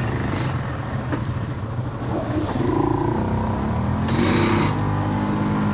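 ATV engines running and revving in a deep mud hole, the pitch rising and falling in the middle. There is a short hiss about four seconds in.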